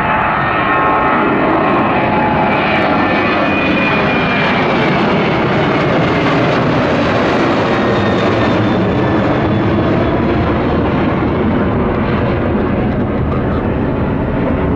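Jet aircraft's engines, loud and steady as it passes close by, with a high whine that falls slightly in pitch over the first few seconds.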